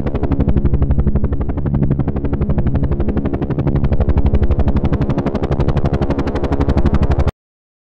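Small DC motor spinning a plastic propeller on a homemade bottle helicopter: a steady, rapid fluttering buzz over a low hum, which cuts off suddenly near the end.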